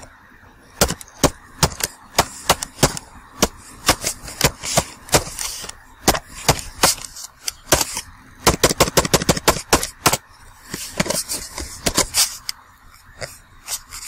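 Computer keyboard typing: a run of sharp key clicks at an uneven pace, with short pauses and a quick flurry of keystrokes just past the middle.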